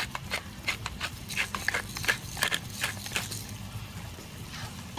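Hand pepper grinder being twisted, cracking peppercorns: a string of irregular crunching clicks, about three or four a second, that stops a little past three seconds in.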